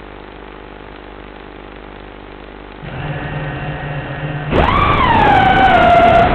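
X250 quadcopter's electric motors spinning up. A low hum turns to a steadier low drone about three seconds in. At about four and a half seconds the pitch shoots up sharply into a loud whine, then eases back a little and holds steady.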